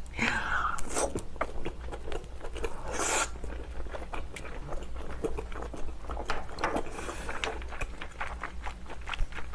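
Close-miked chewing of a piece of abalone: many wet mouth clicks and smacks, with a brief sucking slurp about three seconds in.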